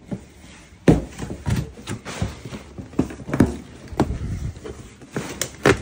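Stapled cardboard shipping box being ripped open and handled, with crumpled brown packing paper rustling. A string of sharp snaps and knocks runs through it, the loudest about a second in and near the end.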